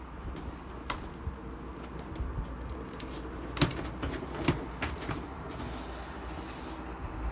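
Boat engine running steadily with a low drone, with a handful of sharp knocks, the loudest about three and a half seconds in.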